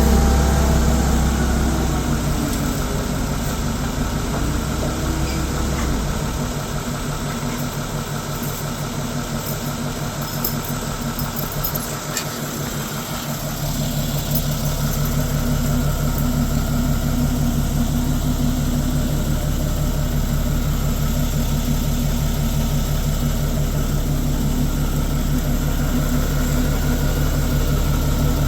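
An engine idling steadily. Its deepest rumble fades out about six seconds in and comes back about fourteen seconds in.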